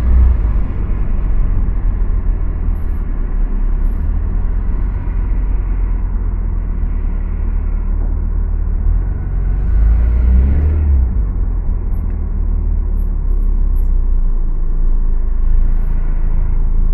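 Steady low rumble of a car driving on a city road: engine and tyre noise, with a brief louder swell about ten seconds in.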